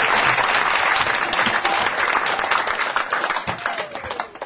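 Audience applauding, many hands clapping together; the clapping thins out and fades away near the end.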